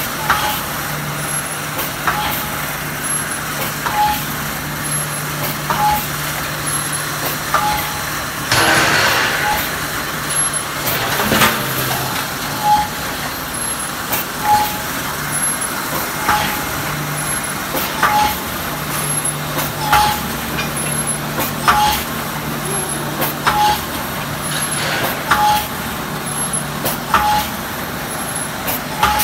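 Automatic wire mesh panel machine running: a steady hum with a sharp clack about once a second, one for each machine cycle, and a short hiss about nine seconds in.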